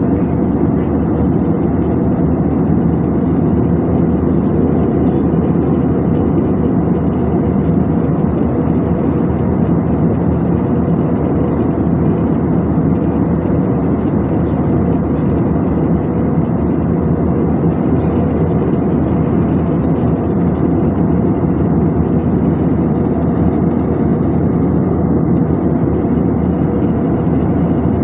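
Steady cabin noise inside an Airbus A320-family jet airliner in cruise: the constant low roar of the jet engines and the air rushing past the fuselage, unchanging throughout.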